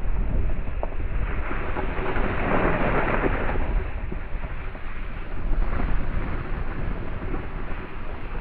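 Wind buffeting the microphone, a steady rough rumble with a stronger gust swelling about two to three seconds in.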